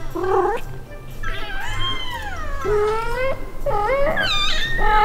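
A month-old kitten meowing four times in thin, high calls: a short one, then a long call that rises and falls, then two more near the end. Background music plays underneath.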